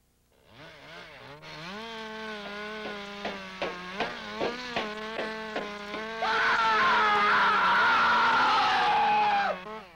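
A chainsaw engine starts and runs, its pitch climbing as it catches and then holding steady, with a run of short pops. About six seconds in it revs louder and harsher, then cuts off sharply near the end.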